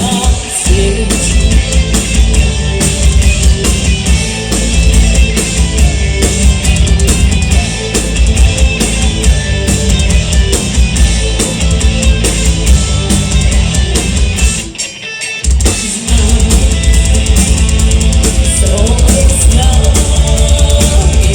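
Metal band playing live, with a drum kit and guitars. About 15 seconds in the band stops together for about a second, then comes back in at full volume.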